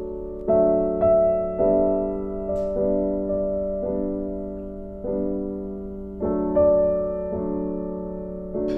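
Soft solo piano music: slow, gentle notes and chords struck every half-second to second and left to ring and fade.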